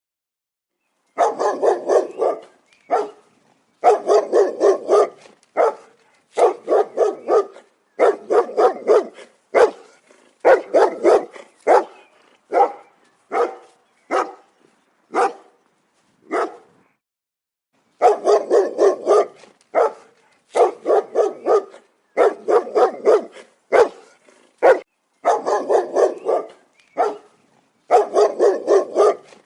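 Large dog barking loudly and aggressively, in quick runs of several barks with single barks between. The barking starts about a second in and pauses briefly about halfway through.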